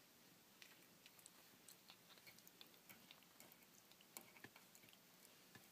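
Faint, irregular clicks and chewing from a month-old rough collie puppy mouthing the rim of a stainless steel water pail.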